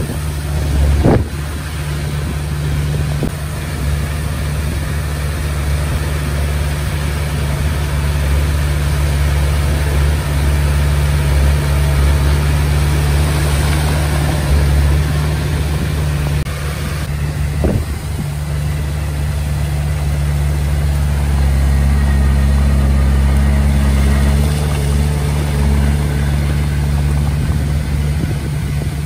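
Komatsu D20P bulldozer's diesel engine running steadily, with a sharp knock about a second in and another around two-thirds of the way through.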